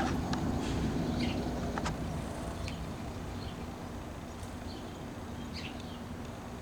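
A distant engine's low rumble with a steady hum, slowly fading, and short bird chirps over it.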